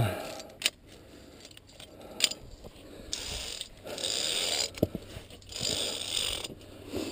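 Via ferrata lanyard carabiners clinking and scraping along the steel safety cable: a few sharp clicks and several short stretches of rasping metal.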